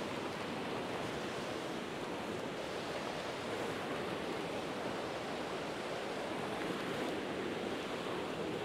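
Steady rush of a small stream running over rocks and through a riffle.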